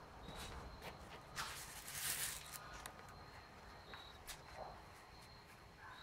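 Paper rustling and light taps as cut paper stencil pieces are handled and pressed flat on a board, loudest about two seconds in. A faint high steady tone comes and goes behind it.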